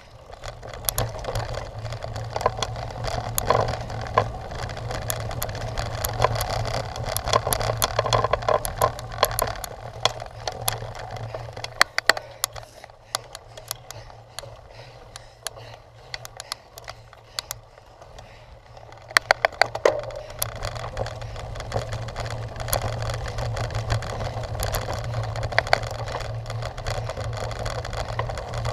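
Cyclocross bicycle rattling and clattering over rough ground, with many sharp clicks and knocks over a steady low hum. The clatter eases for a few seconds midway, then resumes with a burst of sharp knocks.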